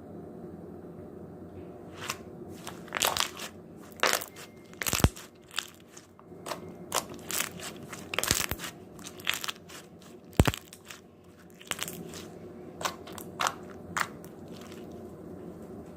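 Rubbery store-bought slime being squeezed and worked in the hands, giving irregular crackling pops and crunches, several a second at their busiest.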